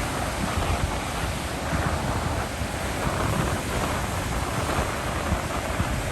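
Ocean surf on a beach, with strong wind buffeting the microphone in uneven gusts.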